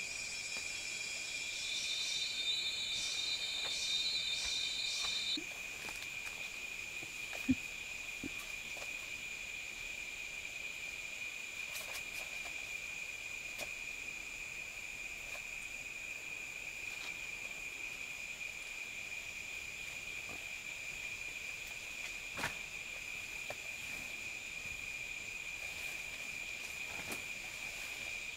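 Steady high-pitched drone of an insect chorus. For the first few seconds a second, pulsing call rises over it. A sharp knock comes about seven seconds in, and a fainter one later.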